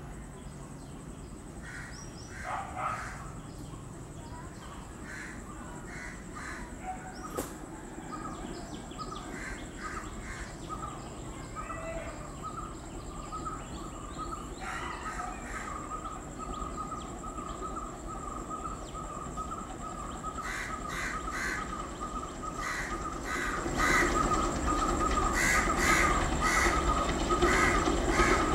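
Crows cawing repeatedly over the low rumble of a distant WDM-3A diesel locomotive hauling a passenger train. The rumble grows louder as it approaches and rises sharply about 24 seconds in.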